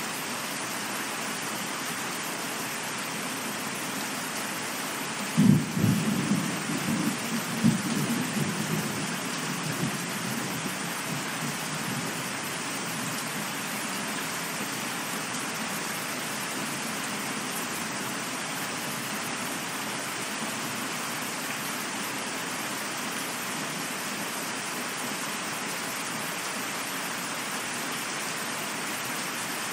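Steady rain hissing. About five seconds in, a sudden clap of thunder breaks out, then a second crack about two seconds later, and the rumble fades away over several seconds.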